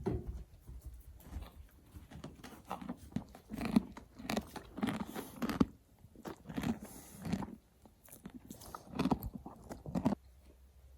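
Horse chewing and crunching molasses sweet feed, in irregular clusters of bites.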